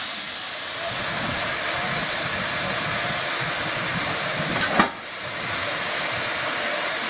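1944 Robert Stephenson & Hawthorns steam locomotive standing in steam, hissing steadily, with one sharp knock a little before five seconds in.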